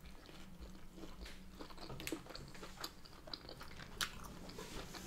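A person chewing a mouthful of food close to the microphone, with scattered small wet clicks and smacks, over a faint steady low hum.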